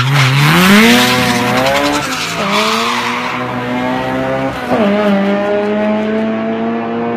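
Honda street race car launching hard from a standing start, tires spinning and squealing as the engine revs climb. The engine pulls through the gears, shifting up twice: about two and a half seconds in and again near the five-second mark.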